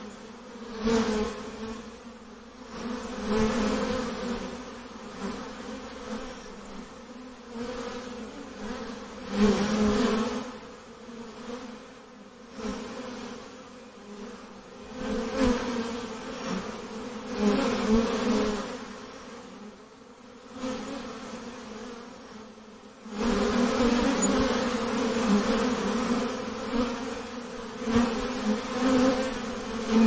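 Honeybees buzzing in a mass: a dense, steady hum that swells and fades every few seconds and grows louder about three-quarters of the way through.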